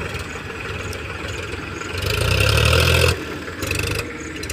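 Powertrac tractor's diesel engine running steadily, swelling louder for about a second midway through and then dropping back suddenly.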